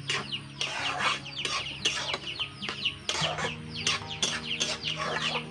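Chickens clucking with many quick, high, falling peeps, over the scrape of a metal spatula stirring in a wok.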